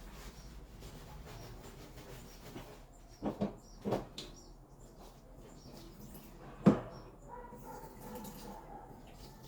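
A few hard clunks of things being handled and set down: a quick pair about three seconds in, another just before four seconds, and a sharper, louder knock near seven seconds, over faint background noise.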